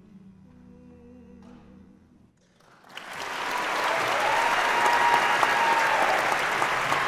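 The last sustained chord of a mixed-voice a cappella group fades out softly, and about three seconds in an audience bursts into loud, sustained applause.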